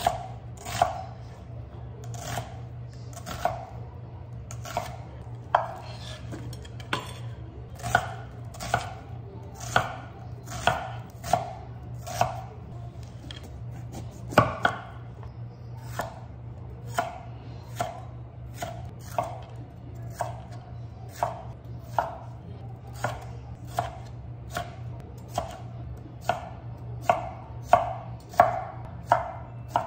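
Chef's knife chopping onion and bell peppers on a thick wooden cutting board: the blade knocks on the board about once a second, with one louder knock about halfway through. A steady low hum runs underneath.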